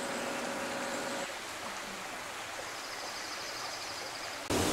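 Steady rush of a shallow creek flowing over rock ledges, with a faint high chirping in the middle.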